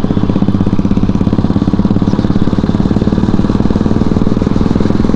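Motorcycle engine running steadily while riding, a fast, even throb of firing pulses.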